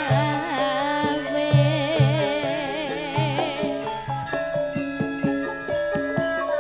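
Javanese gamelan music. For the first three and a half seconds a singer's wavering, vibrato-laden line rides over ringing metallophone notes and low, evenly paced strokes; after that the metallophones and low strokes carry on alone.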